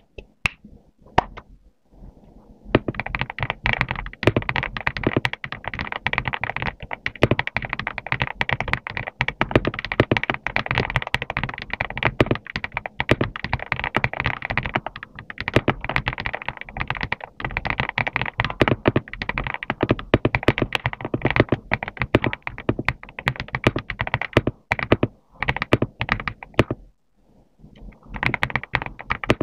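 GMK67 mechanical keyboard with cream yellow switches being typed on fast and continuously, a dense run of key clacks and thocks. A few scattered keystrokes come first, and the typing stops briefly near the end before starting again.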